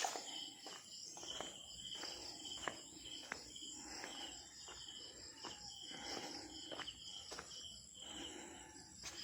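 Insects chirping steadily in repeated pulses, with faint short knocks at irregular intervals.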